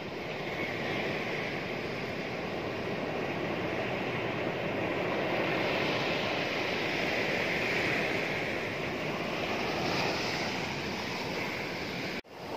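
Sea surf breaking and washing up and back over a dark pebble beach, a steady rush that swells a little in the middle. The sound cuts out for a moment near the end.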